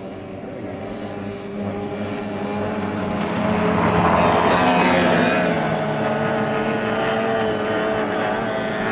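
Two-stroke outboard engine of a stock racing hydroplane running flat out. It grows loud as the boat passes close about four seconds in, then drops in pitch as it moves away.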